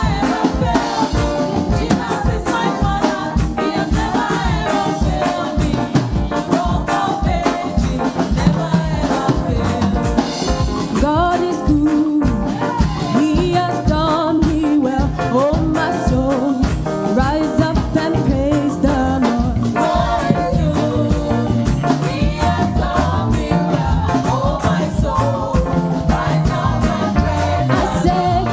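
Gospel praise music: singers over a band with a steady, driving beat.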